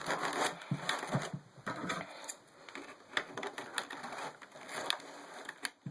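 Stiff plastic packaging being worked open by hand, with irregular sharp clicks, snaps and crinkling. The handling is busiest in the first two seconds, then comes in sparser clicks.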